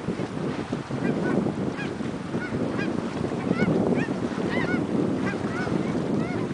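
A flock of geese in flight honking, many short calls overlapping and coming thick and fast from about a second in. Underneath runs a steady low rumble of wind on the microphone.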